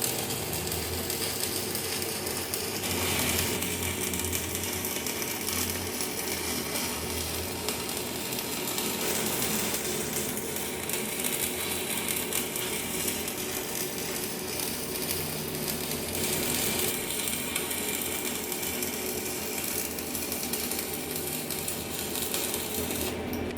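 Electric arc welding on a cracked motor shaft joint: a steady, continuous crackle of the arc.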